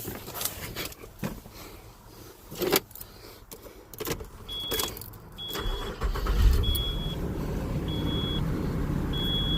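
Vehicle's engine starting about six seconds in and then running steadily, with a short high warning chime beeping about once a second from shortly before. Before that, a few scattered knocks and clunks.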